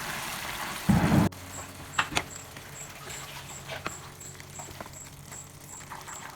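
A spoon stirring thick chicken curry in a pan: scattered light scrapes and clinks, after a louder thud about a second in.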